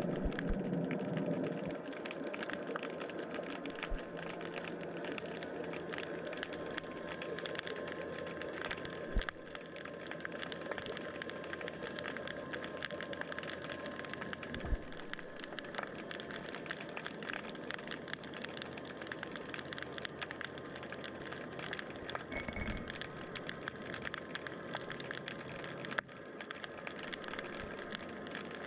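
Underwater ambience heard through a camera's housing: a dense crackle of clicks over a steady faint hum of distant boat motors, with a few dull knocks.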